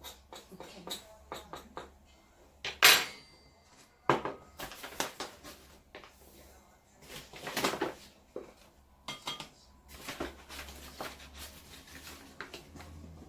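Kitchen bowls and utensils clinking, knocking and scraping on a work surface, with a sharp clatter about three seconds in and more louder clatters around four and seven seconds in, as flour is measured out for pasta dough.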